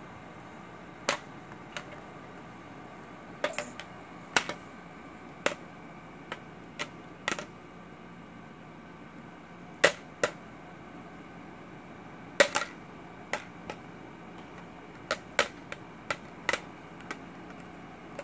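A plastic TV remote control being handled by a baby: irregular sharp clicks and knocks, one to three at a time, as it is tapped, pressed and knocked about.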